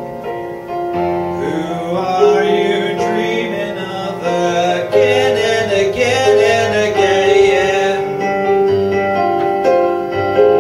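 Yamaha CP4 digital stage piano playing sustained chords while a man sings long, wavering notes with vibrato over it.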